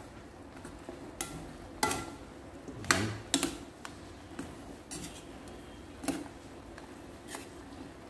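Spatula stirring pork adobo in a wok, knocking and scraping against the pan about seven times at an irregular pace, loudest around two to three seconds in.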